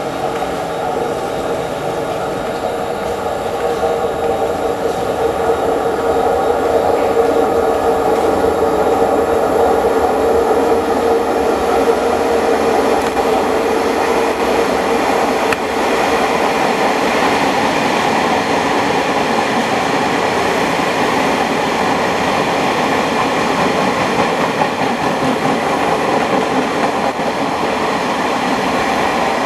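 Hyundai Rotem-built KTM Class 91 ETS six-car electric multiple unit running through a station at speed. Its running noise builds over the first several seconds as it approaches, then holds steady and loud as the cars go past.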